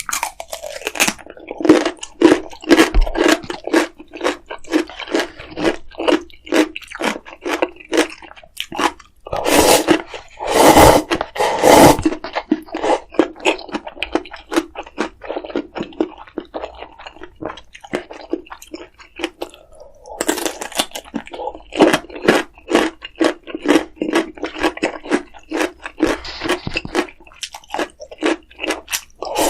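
A person chewing crunchy food close to the microphone, a steady run of about two chews a second, with louder crunching bites around ten to twelve seconds in.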